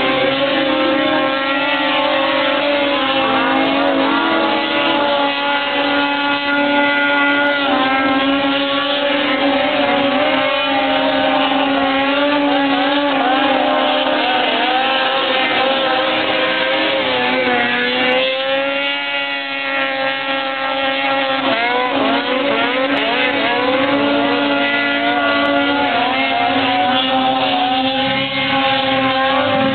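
Several snowmobile engines running at high revs as the sleds skim across water in a watercross race, their pitches overlapping and rising and falling as they speed up, ease off and pass.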